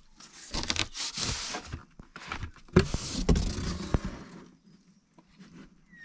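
Cardboard box and plastic wrapping rustling and scraping as a portable car fridge is handled and unpacked, with a few sharp knocks. It goes quiet for the last second or so.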